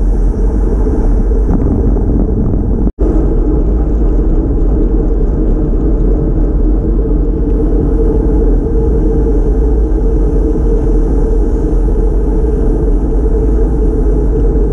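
Steady wind rumble on the microphone of a bike-mounted camera riding at speed, mixed with tyre and road noise. The sound drops out for an instant about three seconds in.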